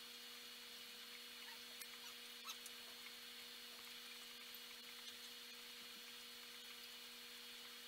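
Faint, steady electrical hum of running aquarium equipment, with a low hiss and a few faint ticks in the first few seconds.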